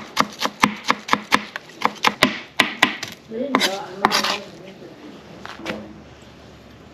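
Chef's knife chopping fresh cilantro on a plastic cutting board, quick even chops about five a second, then the blade scraping the chopped leaves together across the board.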